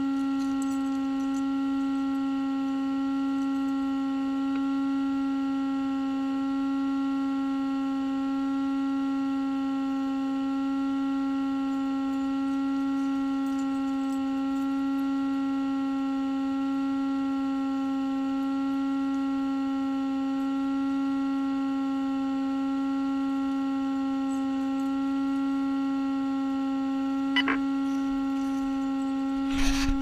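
A steady hum at one unchanging pitch, with several overtones above it. A single click sounds late on, and a few louder knocks come right at the end.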